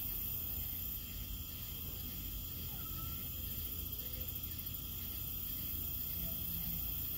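Steady background hiss with a low rumble underneath, with no distinct sounds standing out.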